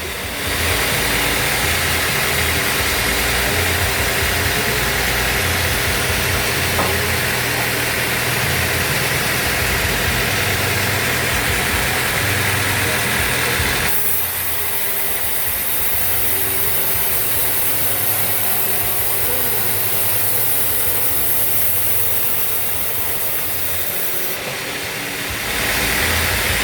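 Band sawmill machinery running steadily. Its sound changes about halfway through and changes back near the end.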